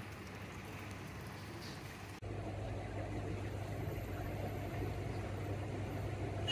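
Steady low engine hum. About two seconds in it changes abruptly and becomes a little louder, with a higher drone added.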